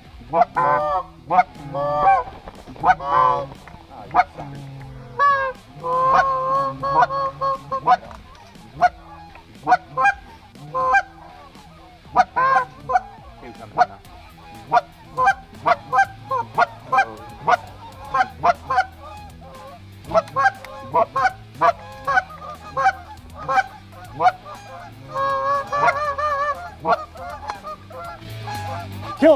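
Canada geese honking: a long run of short, rapid honks and clucks, with longer wavering calls about six seconds in and again near the end.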